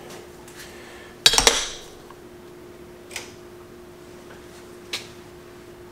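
Metal hand tools clattering and clinking as they are rummaged through: a loud burst of clinks about a second in, then two single clinks.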